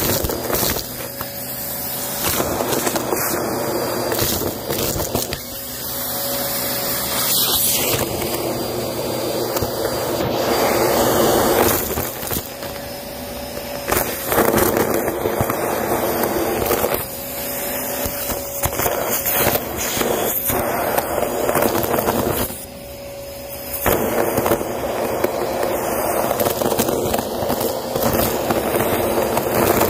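Vacuum cleaner with a crevice nozzle running steadily, crackling and rattling as it sucks up confetti, sequins and paper pieces. Its pitch and loudness dip several times, most deeply about 23 seconds in.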